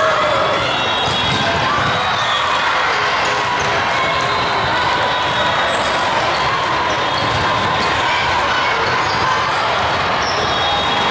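Echoing din of a busy volleyball tournament hall with many courts: a steady hubbub of players' and spectators' voices, with volleyballs being struck and bouncing on the courts.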